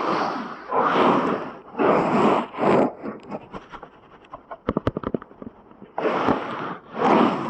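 Close-miked ear-cleaning ASMR: scratching and rubbing strokes right at the microphone's ear, about one a second. In the middle they give way to fine crackles and a quick run of sharp clicks, and the strokes come back near the end.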